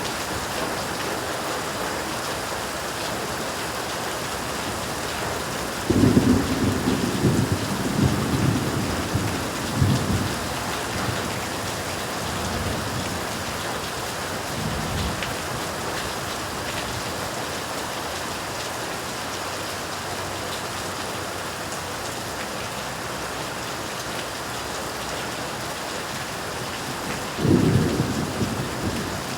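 Steady heavy rain hissing, with rolls of thunder rumbling low: a long rumble about a fifth of the way in that fades over several seconds, a fainter one after that, and another near the end.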